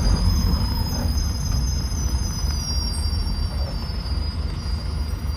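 City bus's brakes squealing in a high, thin tone that starts suddenly and sinks slowly in pitch as the bus slows to a stop, over the steady low rumble of the bus's engine and tyres.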